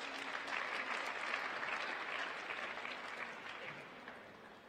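Applause from a small audience in an ice rink, peaking about a second in and fading away toward the end.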